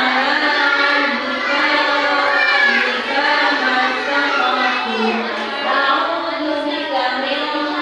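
Young children singing a song together in sustained, pitched notes.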